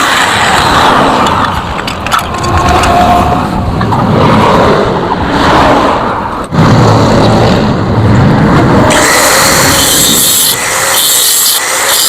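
Power tool grinding metal: a loud, rough, continuous noise that dips briefly about two seconds in and again about six and a half seconds in.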